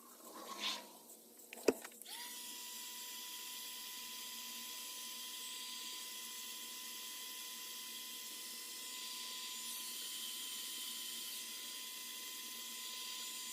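Small high-speed electric power tool spinning up about two seconds in and running at a steady high-pitched whine, after a single click.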